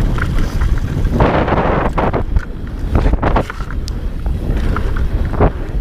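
Enduro motorcycle riding over a rough dirt track. Wind buffets the microphone over the low rumble of the bike, with repeated knocks and clatter from the bumps.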